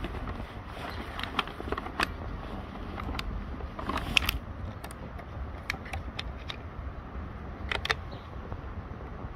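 A kitten crunching dry kibble: irregular sharp crunches and clicks, a dozen or so, the loudest about four seconds in and near the end, over a steady low rumble.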